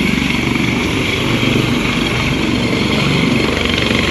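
Helicopter lifting off, its main rotor and turbine engines running at takeoff power: a fast, steady rotor beat under a loud rushing hiss.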